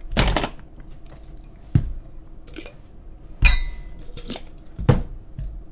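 Clear drinking cups being handled and set down, about five separate knocks and clinks, one of them with a brief ring.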